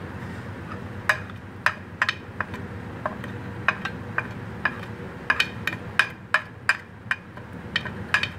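Light, sharp clinks and taps of kitchen utensils against steel dishes, irregular and several a second at times, busiest in the second half, as spice powders are added to a steel tray of marinating meat.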